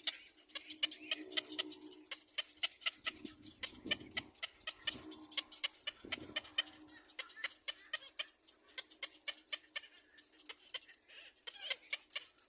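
Baby birds giving rapid, short, high-pitched begging chirps, several a second, over a faint steady low hum, with a few dull low thumps midway.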